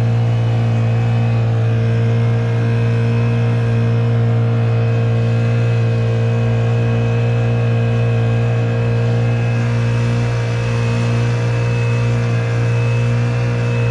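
Honda GX50 four-stroke outboard on a kayak running steadily under way: a constant, even engine drone that holds one pitch throughout.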